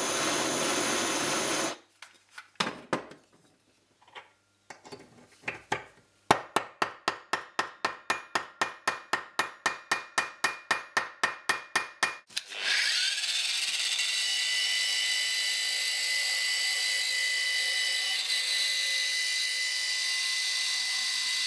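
Hand hammer striking forged steel held in a vise, about two dozen sharp blows at about four a second after a few scattered knocks. Past the middle, an angle grinder with a wire wheel starts and runs steadily with a high whine, brushing the steel corkscrew.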